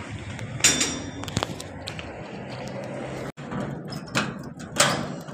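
A metal gate or grille being handled and opened: several sharp clanks and knocks, the loudest about two-thirds of a second in and again near the end.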